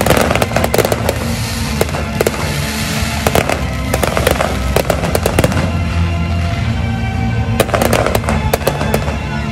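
Fireworks display: aerial shells bursting and crackling in quick, irregular succession, with music playing underneath.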